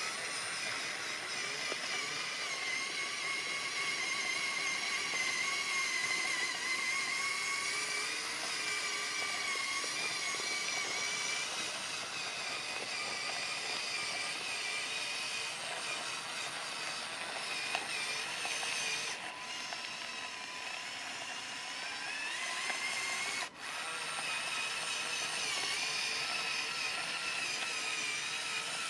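Electric motors of a LEGO Technic 42129 Mercedes-Benz Zetros trial truck whining steadily through its gearing as the model drives, the pitch wavering a little. The sound cuts out for an instant about three-quarters of the way in.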